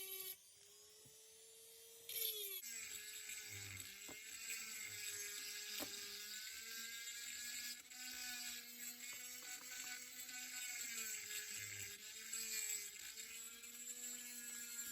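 A small high-speed electric motor whining steadily, its pitch dipping briefly several times; the first two seconds are quieter.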